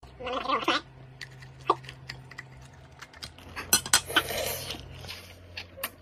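Cooked Boston lobster being pulled apart by hand and eaten: wet shell-and-meat sounds with scattered sharp clicks, louder about four seconds in, and a fork clinking on a plate.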